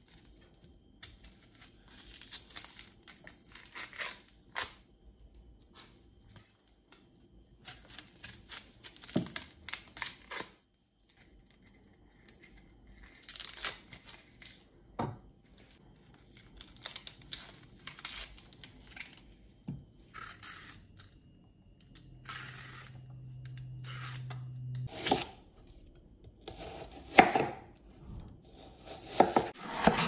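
Dry, papery onion skin being torn and peeled off by hand, crinkling in short spells, with light knife taps as the onion is trimmed on a wooden chopping board. Near the end come several sharper knocks of a knife on the board.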